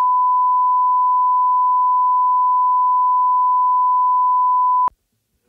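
Steady test tone (line-up tone) played with colour bars: one unbroken pitch that cuts off abruptly near the end.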